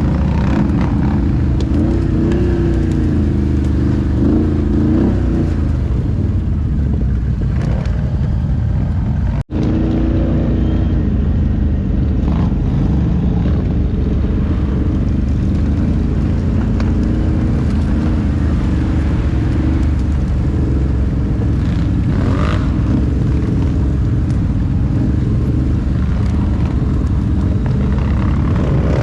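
ATV engine running under way, its pitch rising and falling as the throttle is worked.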